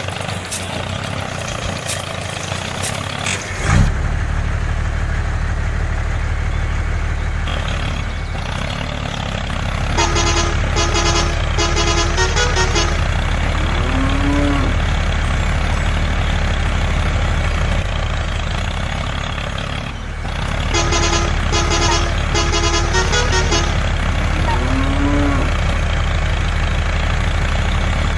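Steady low engine drone of a truck, stepping up after a click about four seconds in. Twice it is overlaid by a run of quick, chopped horn toots, each followed by a short rising-and-falling tone. The two runs are spaced about ten seconds apart, like a repeated sound effect.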